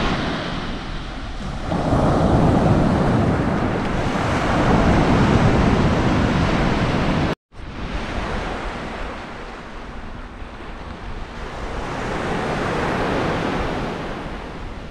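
Surf washing onto a sandy beach, a steady noise of breaking waves that swells and eases, with wind buffeting the microphone. The sound cuts out completely for a moment about seven seconds in.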